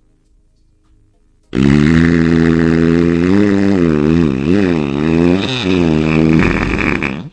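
One long fart sound effect: a loud, low, buzzing tone that starts about a second and a half in, wavers up and down in pitch in the middle, and cuts off suddenly near the end.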